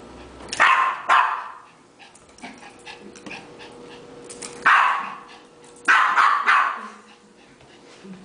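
Yorkshire terrier barking in play: a pair of sharp barks about half a second in, then another run of barks from about four and a half to six and a half seconds.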